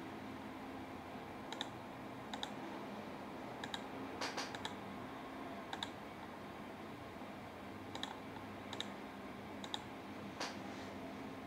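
Computer mouse button clicking about ten times at irregular intervals, several clicks coming in quick pairs.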